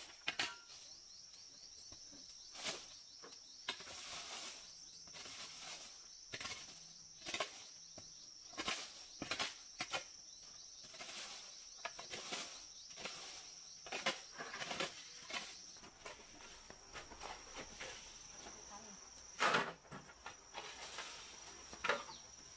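Steady high-pitched drone of insects, with scattered clicks, knocks and rustles throughout; the loudest knock comes near the end.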